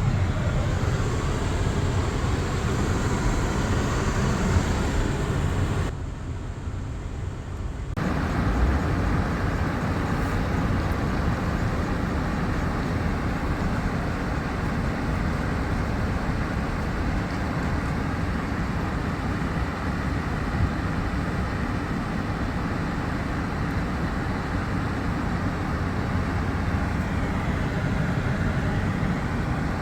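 Concrete mixer truck running, a steady engine and road noise, with a quieter stretch of about two seconds some six seconds in.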